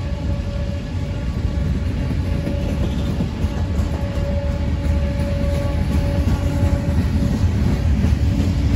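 CSX freight train rolling past: a steady low rumble of wheels on rails that grows louder toward the end. A thin steady tone runs over it and fades out about seven seconds in.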